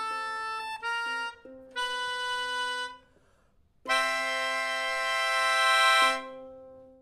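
Music on a free-reed instrument: a few held melody notes over a steady low drone, a short break, then a loud sustained chord about four seconds in that fades away near the end.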